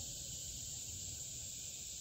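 Steady, high-pitched chorus of insects with a faint low rumble underneath.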